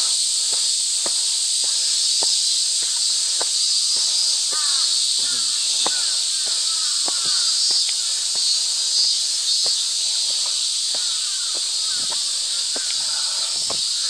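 A dense, steady, high-pitched chorus of cicadas, with footsteps climbing steps about twice a second.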